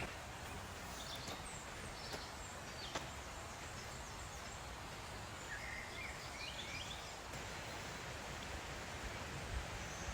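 Quiet outdoor ambience: a steady, even hiss with a few faint high chirps, most of them about six to seven seconds in. There is also a single light click about three seconds in.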